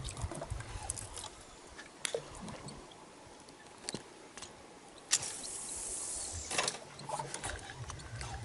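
Spinning reel and rod being worked: a run of light mechanical clicks and ticks, then a sharp click about five seconds in followed by a high hiss for about a second and a half.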